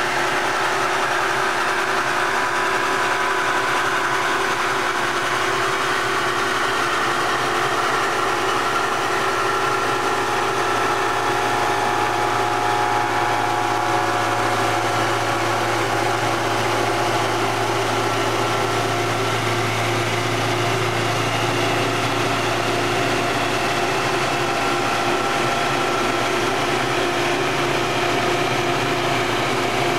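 Intorex CI 1500 copy lathe running and cutting a wooden bat as its knife carriage travels along the work, a steady mechanical hum with several steady whining tones. A low hum grows stronger around the middle, then eases.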